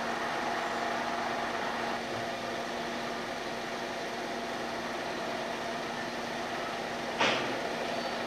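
An engine running steadily with a constant hum, and a single knock about seven seconds in.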